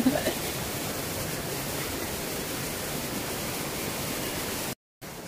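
Steady rush of river water flowing over rocks. It cuts out for a moment near the end and comes back quieter.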